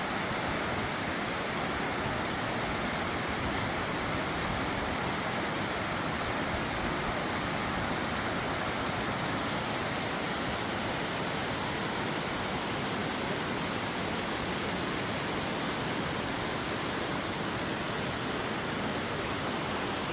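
Steady, unbroken rush of falling or flowing water.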